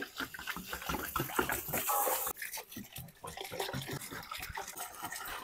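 Water poured from a large vessel into a big pot of biryani masala, splashing, loudest in the first couple of seconds.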